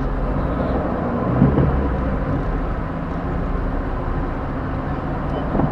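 A car's engine and road noise heard from inside the cabin, steady in slow traffic, with a short thump about a second and a half in.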